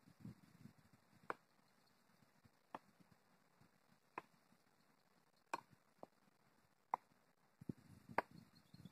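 Thrown knives striking a wooden target board: six sharp thunks, evenly spaced about a second and a half apart.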